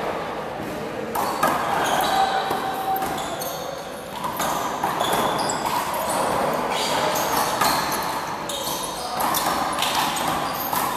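Wall handball rally: a small rubber ball slapping repeatedly off players' hands, the wall and the floor, with short squeaks from sneakers on the court.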